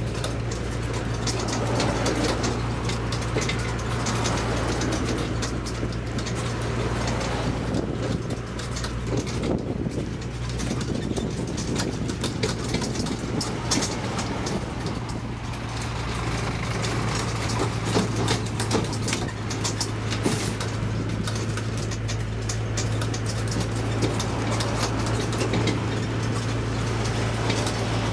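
Tourist mini road train in motion, heard from aboard: a steady low engine drone with road noise and frequent small clicks and rattles from the open carriages.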